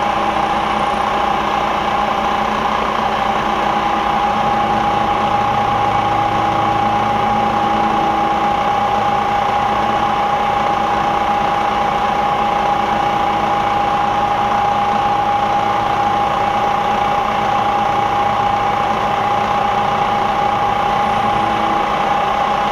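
Bridgeport Series 1 variable-speed milling machine running, its end mill cutting into a metal workpiece: a steady high whine over a machine hum, with a lower hum that joins about four seconds in and drops away near the end.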